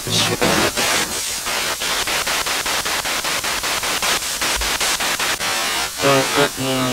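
Spirit box (radio-sweep device) playing through a small amplifier: hissing radio static chopped by rapid, evenly spaced clicks as it scans through stations. Short voice-like fragments break through about six seconds in.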